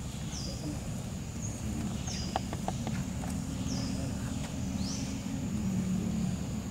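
Outdoor ambience: a steady low rumble, with a short high falling chirp repeating about every second and a half. A few light clicks come a little after two seconds in, and a faint low hum joins around the middle.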